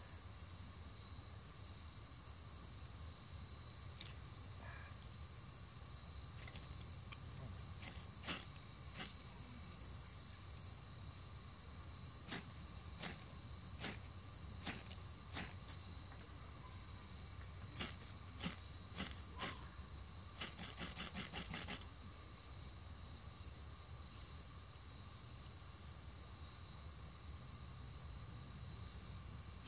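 A spark striker scraped sharply again and again to throw sparks onto wood shavings while lighting a fire, a dozen or so single strokes with a quick run of rapid strokes about two-thirds through. Crickets trill steadily behind.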